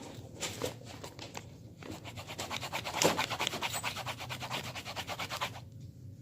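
Pen scribbling back and forth on paper, crossing out writing in a run of rapid scratchy strokes that picks up about two seconds in and stops shortly before the end.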